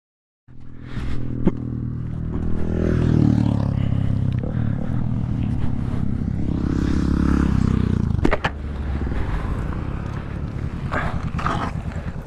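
Motorcycle engine running at idle, cutting off sharply about eight seconds in, followed by scraping and rustling in brush.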